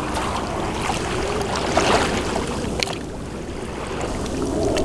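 Small waves washing at the shore with wind rumbling on the microphone, and a few light splashes or clicks.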